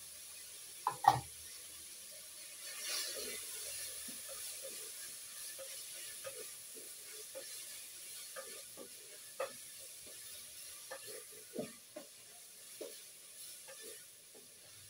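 Two sharp knocks of a cooking utensil against a pan, then food sizzling in the pan, with a spoon scraping and tapping as it is stirred.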